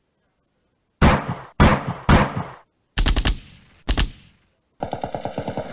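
Bursts of rapid automatic gunfire. About a second in, four short bursts come in quick succession, and near the end a longer, duller stream of fast shots follows.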